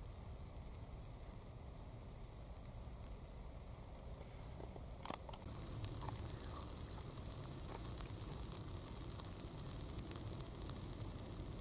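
Small wood campfire burning with a steady hiss, scattered pops and crackles, and a sharper crack about five seconds in.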